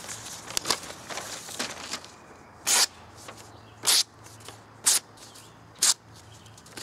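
Newspaper being sliced by a freshly sharpened Case pocket knife: four short cuts about a second apart, after light paper rustling. The edge passes through the paper easily, a sign that it is razor sharp.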